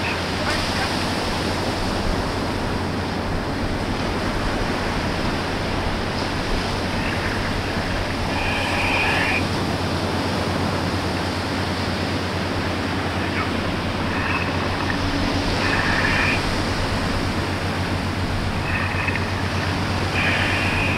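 Steady low drone of a grab-dredger crane barge's machinery working offshore, mixed with the wash of surf. A few brief high-pitched sounds come about eight seconds in, around fifteen seconds, and near the end.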